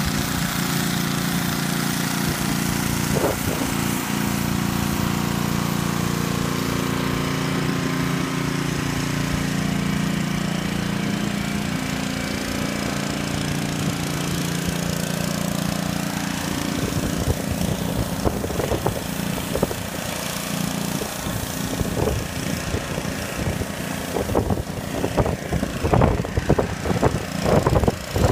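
Small gasoline engine of a pressure washer running steadily, over the hiss of the spray. Irregular knocks and bumps come in over the second half.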